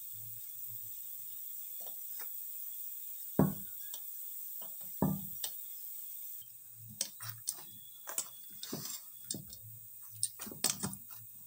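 Hand mixing and kneading wheat-flour dough in a stainless steel bowl: scattered soft clicks and taps of hand and dough against the bowl, with two louder knocks about three and a half and five seconds in.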